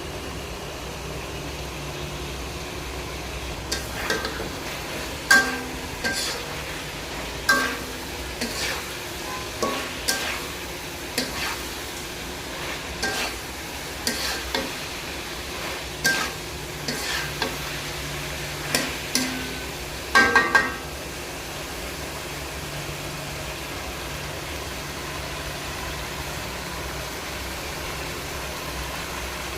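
Masala chicken curry frying in a pan with a steady sizzle while a spoon stirs it, knocking and scraping against the pan about fifteen times. The loudest clatter, a quick run of knocks, comes about two-thirds of the way in, and then only the sizzle goes on.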